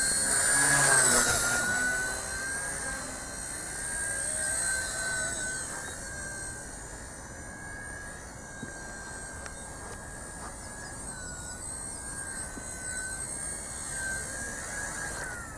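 WLToys V922 micro RC helicopter's electric motors and rotors whining in flight, the pitch wavering with the throttle. Loudest as it lifts off from the hand, then fainter as it flies away; the whine drops and stops near the end as it comes down.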